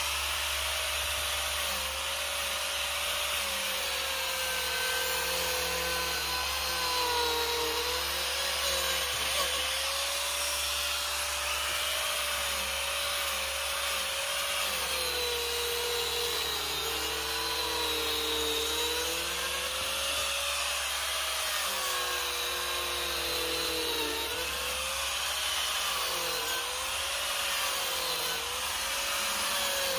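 Angle grinder fitted with a Manpa cutting attachment, running steadily and cutting into cedar. Its motor whine dips and recovers in pitch every second or two as the cutter bites into the wood.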